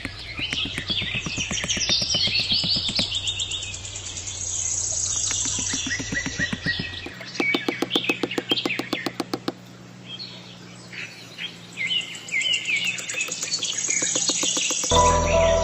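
Many small birds chirping and twittering, with two stretches of rapid, even ticking, one near the start and one in the middle.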